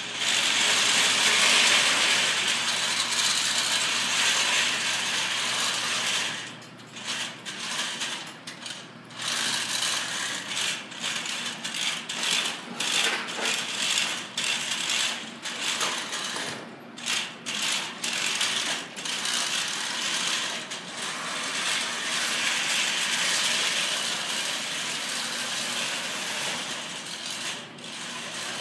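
FRC competition robot's drive motors and gearboxes running as it drives across carpet. Steady for the first few seconds, then stopping and starting in short spurts with many brief pauses.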